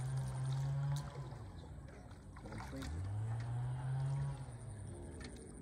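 A low motor hum that fades out about a second in, swells back up about three seconds in, and fades again near the end.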